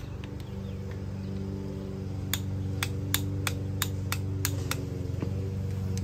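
Torque wrench clicking on the camshaft sprocket bolt of a Ford 302 small-block as the bolt is brought up to 45 ft-lb: a series of about eight sharp metallic clicks, roughly three a second, starting about two seconds in.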